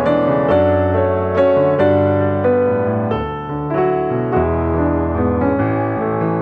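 Background piano music, notes and chords struck one after another at an unhurried pace.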